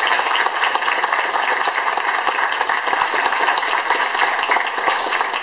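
Audience applauding: dense, steady clapping from many hands that fades out near the end.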